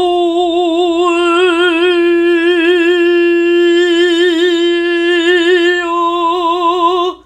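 A woman's trained lyric voice sings one sustained F with vibrato, morphing through the vowels O, OU, E, U, I, E and A on the same pitch as a vowel-morphing vocalise. The note stops abruptly just before the end.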